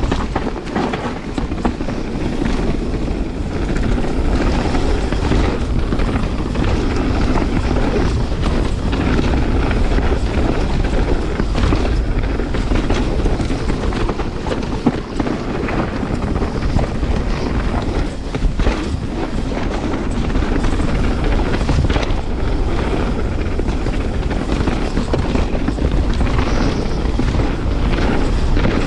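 Canyon Spectral 29 mountain bike ridden down a rough, chunky trail: a continuous rumble of tyres over dirt and rock with frequent rattles and knocks from the bike. Wind buffets the helmet or chest camera's microphone throughout.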